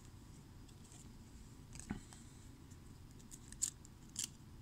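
Trading cards being handled and flicked through by hand: a few faint, crisp flicks and slides of card stock, over a low steady room hum.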